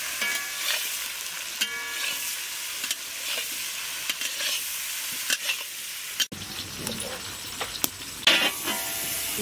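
Cubes of boiled elephant foot yam sizzling as they fry in hot oil in an iron kadai, with a metal spatula scraping and clinking against the pan as they are stirred.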